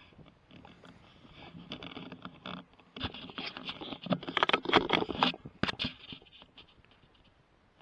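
Scratchy rustling with a run of sharp clicks, loudest in the middle and fading away near the end.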